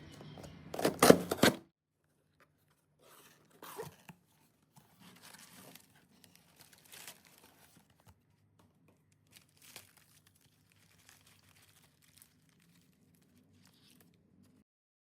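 Packaging torn open in one loud burst about a second in, followed by scattered soft rustles and small clicks as the package is handled.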